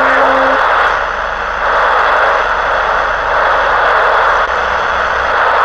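CB radio receiver hissing with steady static through its speaker between long-distance skip transmissions. A short, low, steady tone sounds in the first half second.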